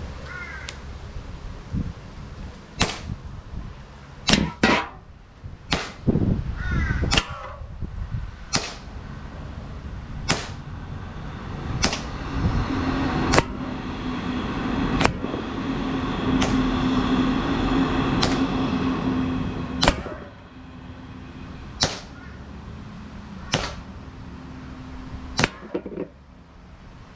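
Green-gas-powered Hi-Capa 4.3 gel blaster pistol firing single shots, each a sharp crack, about one every one and a half seconds, with wind buffeting the microphone.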